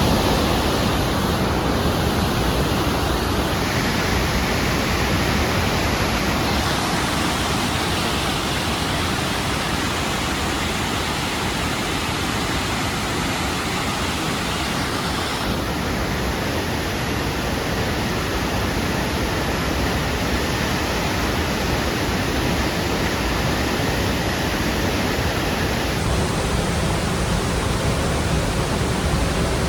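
Rushing water of the Lechfall, the river Lech pouring over its weir falls: a steady dense roar that shifts slightly in tone a few times.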